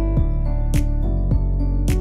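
Background music with a steady beat: a crisp snare-like hit about once a second and deep drum strokes between, over sustained chords and a bass line.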